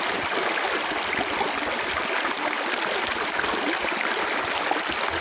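Shallow stream flowing fast over rocks and stones: a steady rush of water.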